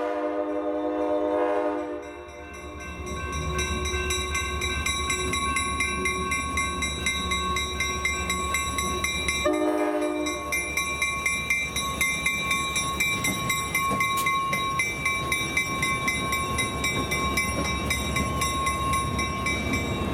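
Diesel freight locomotive's air horn sounding a chord that cuts off about two seconds in, then one short blast near the middle. Between and after the blasts a grade-crossing bell rings steadily over the low rumble of the passing locomotive and train.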